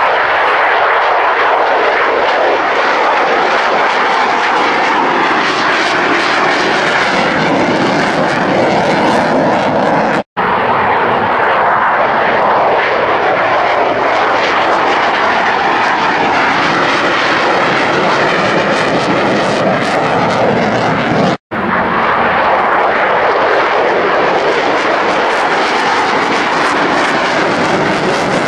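Jet noise of a Mitsubishi F-2 fighter's single F110 turbofan in flight, loud and steady. It breaks off into silence twice for a moment, about ten and twenty-one seconds in.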